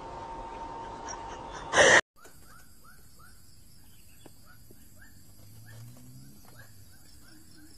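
A brief loud burst of noise about two seconds in, cut off suddenly. Then a faint outdoor background: a steady high-pitched buzz with short rising chirps repeating two or three times a second.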